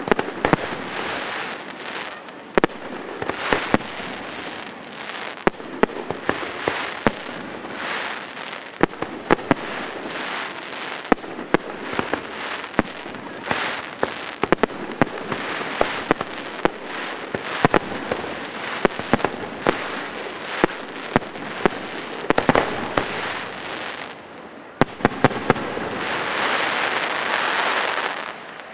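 Fireworks display: a rapid string of sharp bangs with crackling shells between them, building to a dense, louder crackling barrage in the last few seconds that stops suddenly.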